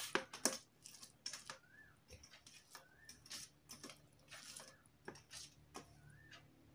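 Faint eating sounds: fingers squishing and mixing rice with soybean-potato curry on a steel plate, with scattered soft wet clicks of chewing.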